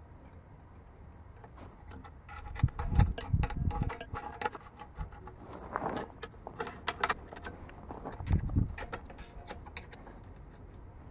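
Small metal clicks and clinks of a hand wrench being fitted to and turned on a brass fitting on an air compressor tank, with a few dull bumps among them.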